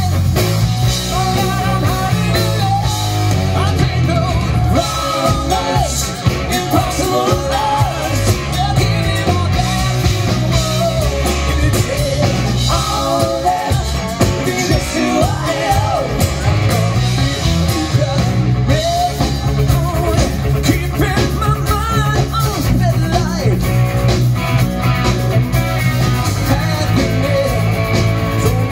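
Live rock band playing electric guitars and a drum kit through a PA system, with a singer's voice over the top.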